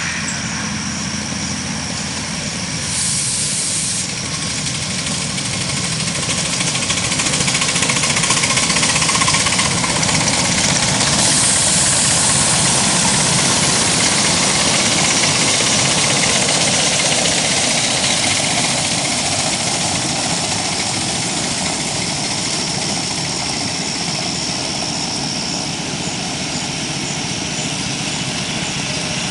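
A 7¼-inch gauge live steam locomotive running past with its riding cars: steam exhaust and hiss together with the wheels on the rails. It grows louder as it passes close, a few seconds in, and fades again in the second half.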